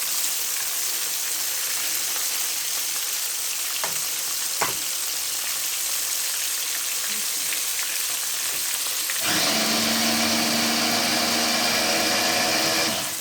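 Flour-coated fish frying in a pan of deep hot oil: a steady crackling sizzle, with two light taps about four seconds in. For the last few seconds it gets louder and a steady hum of several tones joins in.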